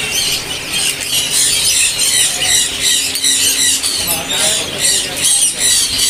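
Many caged birds chirping and squawking at once: a loud, dense chorus of short, overlapping high-pitched calls.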